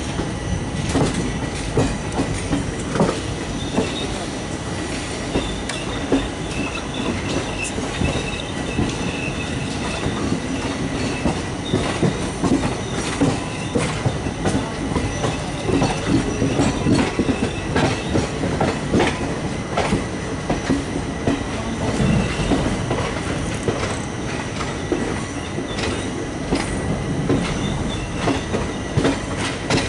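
Railway carriage wheels rolling over rail joints and points, a steady clatter of irregular clicks, with a faint high wheel squeal in the first half.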